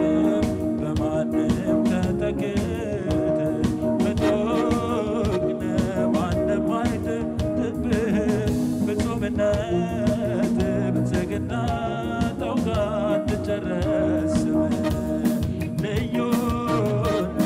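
Amharic gospel song: a man sings into a microphone over a Yamaha synthesizer keyboard accompaniment with sustained chords and a steady beat.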